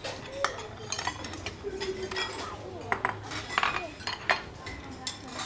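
Bowls, ladles and metal utensils clinking and knocking as noodle orders are dished up, many quick sharp strikes at irregular intervals, with indistinct voices behind.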